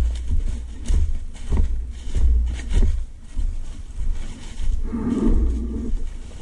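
ATV engine running at low speed and revving in uneven surges, with knocks and rattles as the machine rides over bumps. A louder surge comes about five seconds in.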